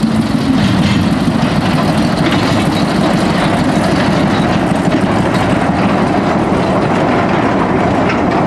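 Narrow-gauge industrial diesel locomotive running steadily as it passes close by, hauling a short train of steel skip wagons that rumble over the rails.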